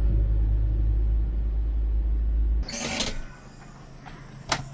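Minivan on the road, heard from inside the cabin as a steady low rumble that cuts off abruptly about two and a half seconds in. A short burst of rushing noise follows, then a single sharp click near the end.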